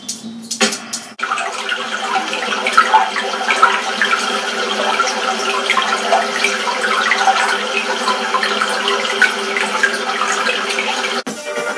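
Babbling stream water, with a steady droning tone beneath, played through a television's speaker. It starts about a second in and cuts off just before the end.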